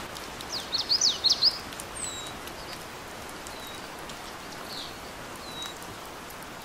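Steady rain with birds chirping: a quick flurry of loud chirps about a second in, then a few single short falling chirps every second or so.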